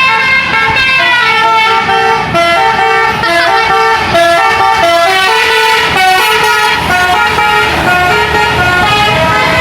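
A bus's telolet multi-tone air horn playing a tune of quick stepped notes, held loud and steady over engine and road noise.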